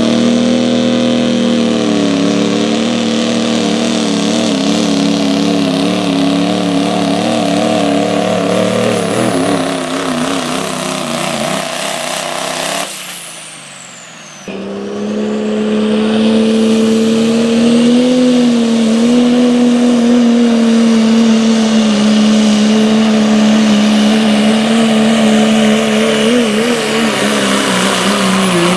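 Two diesel pulling trucks, one after the other, running at full throttle while dragging a weighted pulling sled. The first engine's note wavers up and down. About halfway through the sound drops sharply for a second or two, then a second truck's engine comes in, steady and high.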